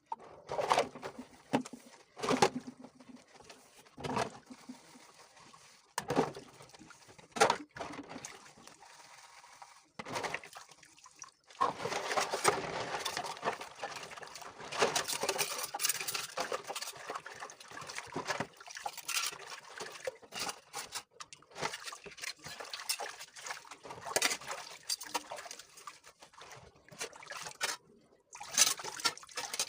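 Water splashing in short separate bursts, then running and splashing continuously from about twelve seconds in.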